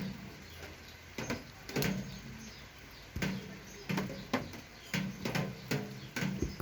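Suspension fork parts and tools handled during a strip-down: irregular light clicks and knocks, about a dozen in all, more frequent in the second half.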